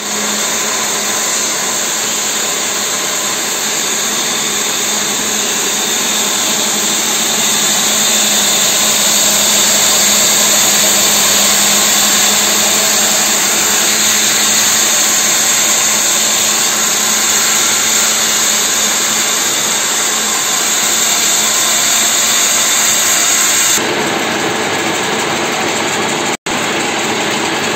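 Belt-driven circular saw rig running steadily, its motor humming under a loud high hiss, with no cut under way. The sound changes about 24 seconds in and breaks off for an instant shortly after.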